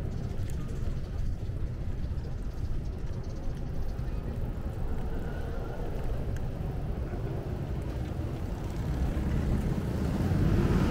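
Wind rumble on the microphone and road noise from a bicycle ride along a city street, a steady low rumble that grows louder near the end.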